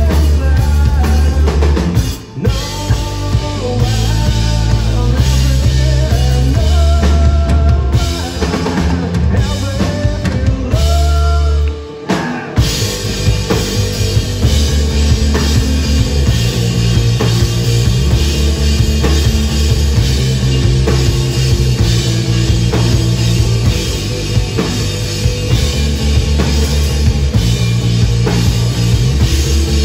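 Psychedelic stoner rock band playing live: heavy bass and a drum kit under gliding, bending lead guitar lines. The band cuts out briefly twice, about two and twelve seconds in, and after the second break comes back in fuller and denser.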